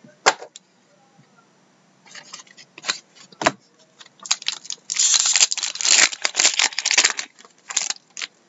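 A foil trading-card pack wrapper being torn open and crinkled by hand: a sharp crack near the start, scattered crackles, then a dense stretch of crinkling for about three seconds past the middle.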